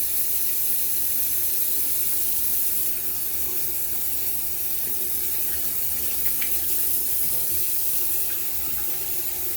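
Bathroom faucet running hot water into a sink, a steady rush, while a shaving brush is rinsed out under it.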